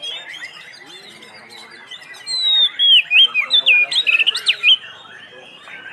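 Oriental magpie-robin (kacer) singing: fainter chirps, then about two seconds in a loud run of quick, varied whistled notes lasting a couple of seconds before it falls back to soft chirping. This is the full, vigorous song that kacer keepers call gacor.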